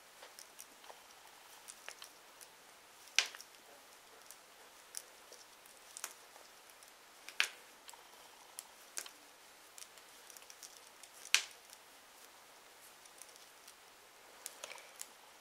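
Size 5 mm metal circular knitting needles clicking and tapping against each other as stitches are knitted: faint, irregular clicks, with a sharper one about every four seconds.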